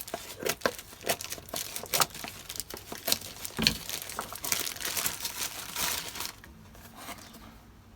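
Packaging being handled and unwrapped: dense, irregular crinkling and crackling with sharp clicks, which stops about six seconds in.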